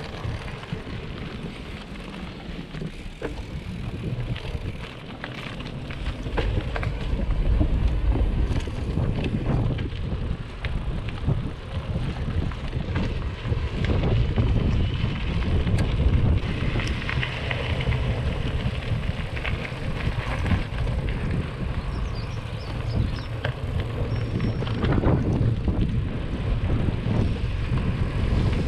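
Mountain bike riding along a dirt trail, heard from the handlebars: wind buffeting the microphone and tyre rumble, louder from about six seconds in, with frequent small rattles and knocks from the bike over bumps.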